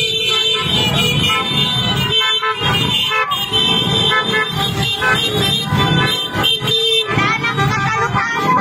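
Horns of scooters and other vehicles in a motorcycle motorcade honking over the running engines, some held as steady tones and others in short toots.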